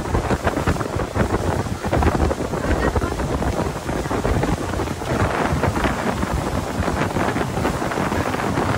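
Wind buffeting the microphone on a speedboat under way, a dense, loud rushing with irregular low gusts, over the boat's running noise on the water.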